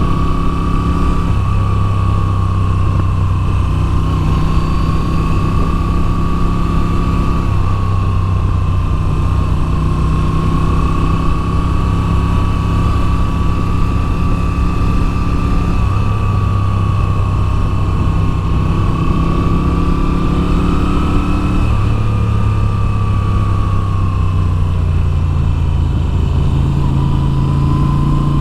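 2022 Moto Guzzi V7's air-cooled V-twin running under way, its note stepping up and down every few seconds with throttle and gear changes, with a steady higher whine above it.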